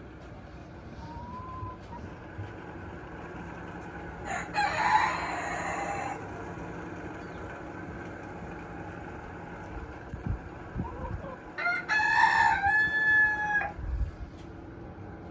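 A rooster crows twice, about four seconds in and again near the end, each crow lasting about two seconds, the second ending on a long held note.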